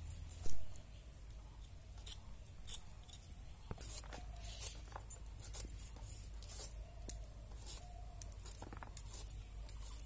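Raw jackfruit being sliced on an upright fixed kitchen blade (boti): a string of short, crisp, irregular cutting sounds as the flesh is pushed through the blade. One sharp, loud knock about half a second in.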